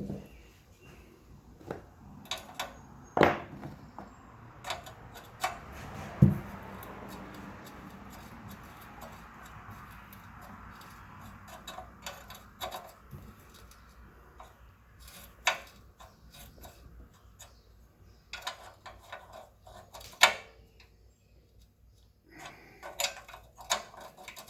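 Metal tools and parts clinking and knocking, with a few sharper knocks, while the rusty water pump is worked on. A faint hiss runs through the first half.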